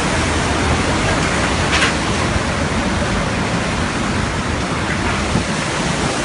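Tornado wind and heavy rain in one loud, steady rush of noise, with the wind buffeting the microphone. A short sharp clatter sounds about two seconds in.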